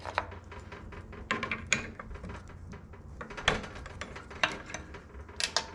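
Scattered metal clicks, clinks and knocks of tools and work being handled and adjusted at a drill press, over a faint steady low hum.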